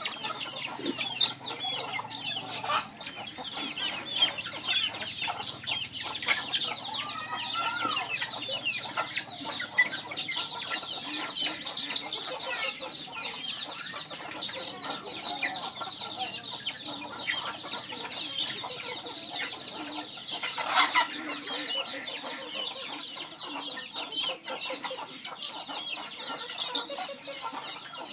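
A flock of native chickens clucking continuously as they feed, with a dense stream of short, high-pitched calls throughout.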